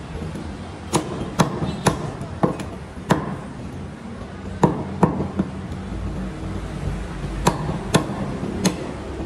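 Meat cleaver chopping goat meat on a round wooden chopping block: about ten sharp chops in uneven bunches, with short pauses between them.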